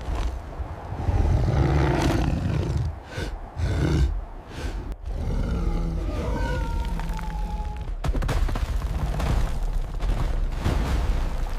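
Cinematic sound effects: a deep, heavy rumble with a creature-like roar, and a short falling whine about six seconds in.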